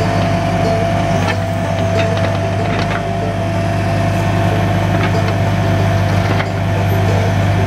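Bobcat 325 mini excavator's diesel engine running steadily under load, with several sharp cracks of branches snapping as its arm and bucket push into the brush.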